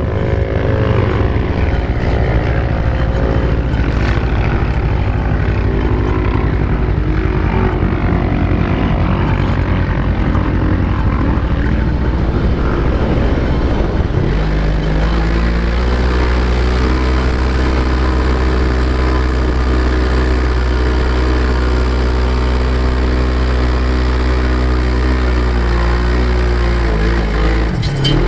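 Off-road vehicle engine heard from on board while driving over sand dunes. Its revs rise and fall through the first half, then hold at a steady higher pitch from about halfway, with a brief dip near the end.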